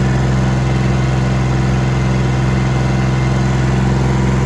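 An engine idling steadily, with a constant, even low drone that does not change.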